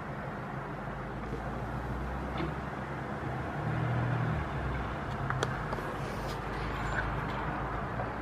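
Outdoor road-traffic noise: a steady hum with a low engine drone that swells for about a second, about four seconds in, and a few light clicks near the end.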